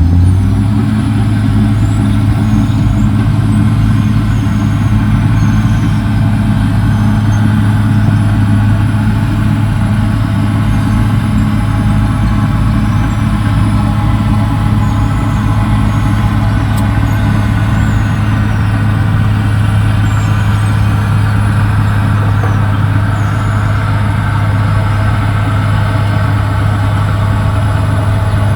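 CAT D6R XL bulldozer's diesel engine running loud and steady, its drone holding one pitch throughout.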